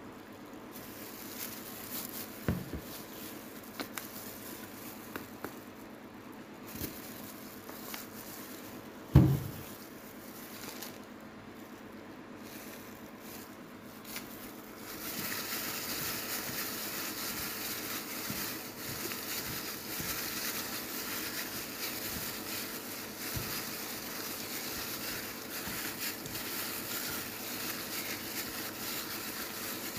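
A few sharp knocks in the first half, the loudest about nine seconds in. From about halfway, a steady wet squelching as raw chicken pieces are mixed by hand with soy sauce and cornstarch.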